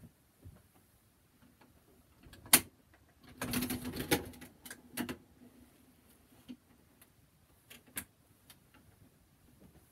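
Plastic clicks and knocks of a life-size animatronic dancing Santa being put together by hand, its torso fitted onto the legs: one sharp click about two and a half seconds in, a second of rattling and clicking just after, then a few single clicks.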